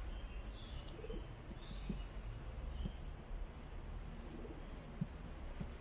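Birds calling in the background: scattered high chirps and short whistles, with the low cooing of a dove.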